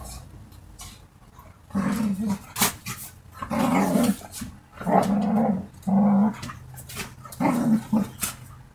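Two dogs play-fighting, growling in about five rough bursts of half a second or so, with a few sharp clicks between them.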